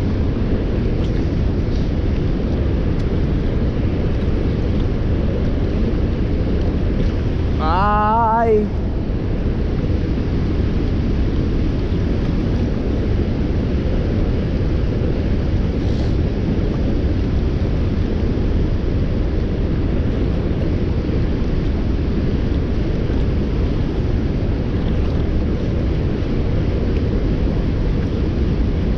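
Steady, loud rush of river water pouring over a dam and churning below it, mixed with wind on the microphone. About eight seconds in, a short wavering call of under a second rises above it.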